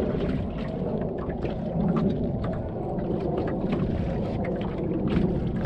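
Small fishing boat on the water: a steady low rumble with many small slaps of water against the hull.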